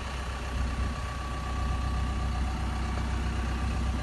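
Doosan DX140LC excavator's four-cylinder Perkins diesel engine idling steadily, a low, even hum with a faint steady high tone over it.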